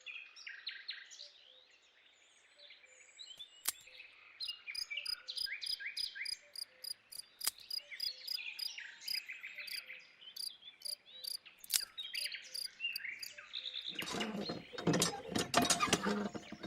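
Small birds chirping in quick repeated calls, with a fast run of high, regular ticks in the middle. Near the end about two seconds of louder rough noise sounds over the birdsong.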